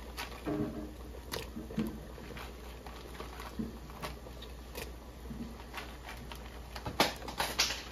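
Whole cooked crawfish being taken by hand from a plastic tray and dropped into a pot of seafood-boil liquid: irregular soft plops and wet squishy handling, with shells clicking against the tray, the sharpest clicks about seven seconds in.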